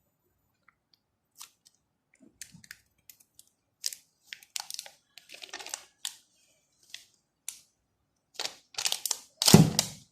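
Close handling of a new smartphone and its packaging: scattered light clicks, taps and plastic rustles, with a louder burst of rustling and a bump near the end.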